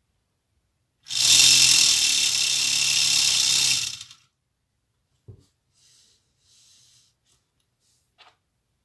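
LEGO model cylinder engine driven by its motor, running with a loud, steady whirring buzz for about three seconds before it cuts off. A few faint clicks follow.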